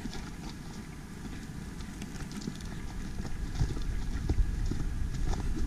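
Footsteps of people walking on a trail: irregular crunching steps over a low rumble that grows louder toward the end.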